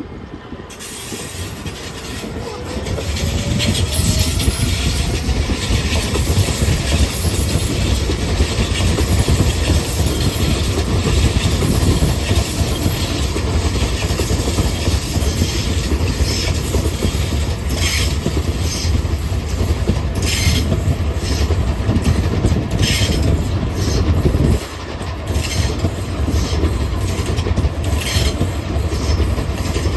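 Train running on rails: a loud, steady rumble of wheels on track that builds over the first few seconds, with a run of sharp clacks from the rail joints in the second half.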